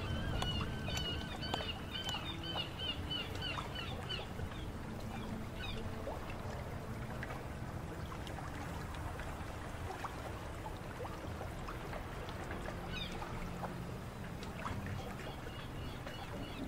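Waterfront ambience: water lapping and trickling over a low steady rumble, with a bird chirping quickly and repeatedly for the first few seconds and scattered small clicks and creaks.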